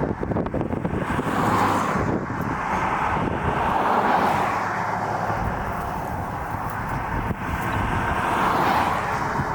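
Wind rushing around a car, swelling and easing every couple of seconds over a low rumble.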